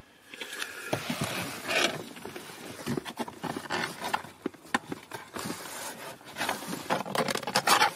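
Irregular scraping, knocking and clicking of the plastic lower dash trim panel of a BMW E36 as it is pulled and worked free of its clips under the steering column.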